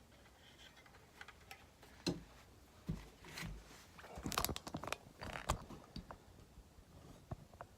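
Scattered clicks and knocks of handling, a few single ones early, then a busier cluster of sharp knocks around the middle.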